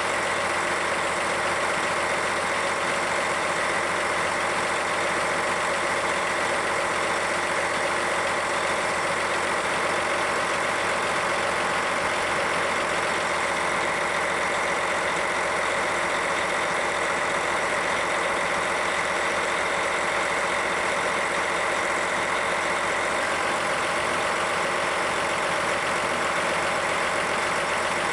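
The 600 HP John Deere diesel engine of a hydrostatically driven boom pump truck running steadily at a constant speed.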